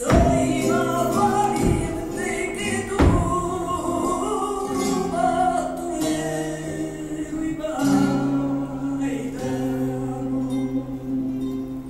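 Flamenco petenera: a singer's wavering cante line over flamenco guitar. A few sharp, loud accents cut through, the loudest at the start and about three seconds in.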